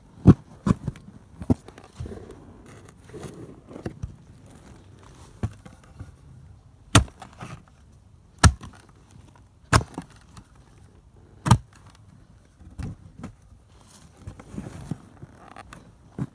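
A spade being driven into damp soil while a narrow trench is dug, giving sharp strikes at irregular intervals with softer scraping and scuffing of earth between.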